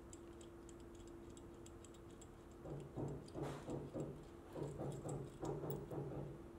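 Faint clicks and clinks of small metal parts, the pulley and its screw and nut, being turned and handled by hand over a low steady hum. About halfway through the clicks grow louder and more frequent, over a faint low pulse that repeats evenly.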